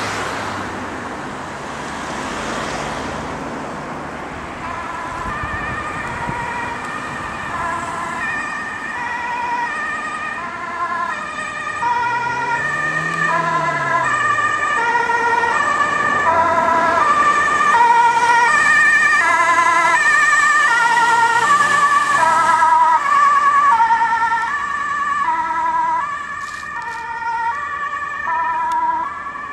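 Ambulance's two-tone siren alternating steadily between a high and a low note, coming in a few seconds in, growing louder as it nears and fading again near the end, over traffic noise. A vehicle passes by at the start.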